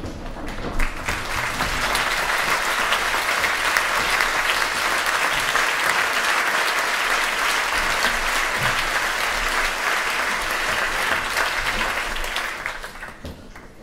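Audience applauding: the clapping swells over the first couple of seconds, holds steady, then dies away near the end.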